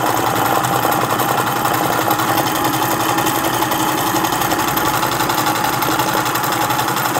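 Janome domestic electric sewing machine running steadily, stitching through fabric with a fast, even patter of needle strokes.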